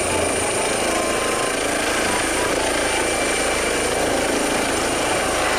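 Helicopter sound effect: a steady rotor-and-engine noise with a thin high whine over it.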